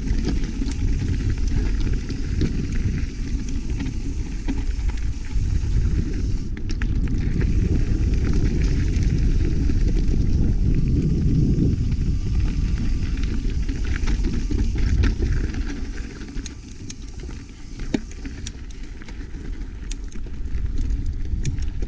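Mountain bike descending a dirt trail, heard from a GoPro: a steady low rumble of tyres and wind with scattered clicks and rattles from the bike over rough ground, easing off briefly about three quarters of the way through.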